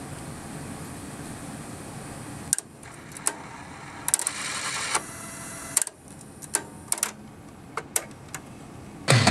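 TOA BA-823 cassette deck's blank-skip at work: a steady hiss and hum of blank tape playing, then a clunk about two and a half seconds in as the transport shifts to fast-forward, a brief whirring, and a string of mechanism clicks as the tape reaches its end and the deck switches over to the other cassette. Music from the other tape starts right at the end.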